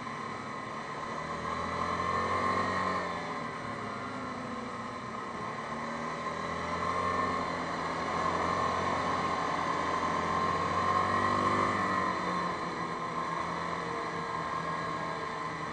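Yamaha Grizzly 550 ATV's single-cylinder four-stroke engine running under way, picked up close from a handlebar-mounted camera. Its pitch rises and falls several times as the rider speeds up and eases off.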